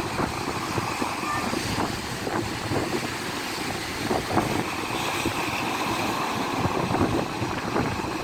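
Wind buffeting the microphone over the continuous rush of sea waves, with irregular low thumps throughout.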